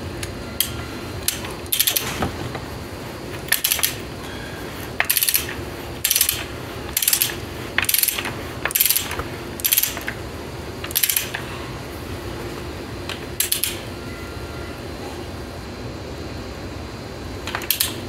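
Ratcheting torque wrench clicking in short bursts of strokes, about one burst a second, then pausing after about eleven seconds with a few more bursts near the end. The wrench is tightening the cap screws on a John Deere 400's timing gears, which are to be torqued to 85 lb-ft.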